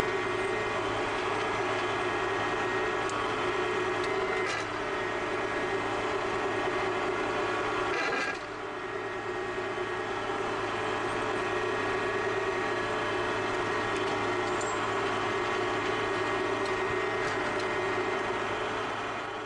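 Yanmar YT359 compact tractor's diesel engine running steadily at a set 1600 rpm while pulling a subsoiler through the ground at crawling speed. The level dips briefly about eight seconds in.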